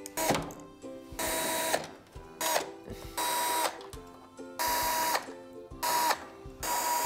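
Cordless drill-driver run in short bursts, roughly one a second, unscrewing the back-cover screws of a flat-screen TV. Each burst is a whir that drops in pitch as the motor stops. Background music plays underneath.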